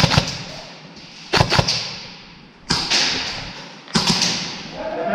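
Airsoft guns firing: four quick volleys of sharp snapping shots, each of several shots in rapid succession, about a second to a second and a half apart, each trailing off in a brief hiss.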